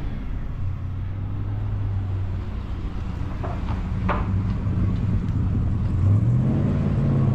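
Chevrolet Malibu V8-era car engine idling with a steady low hum, running well on a new carburetor. About six seconds in the pitch steps up a little as the engine speeds up slightly.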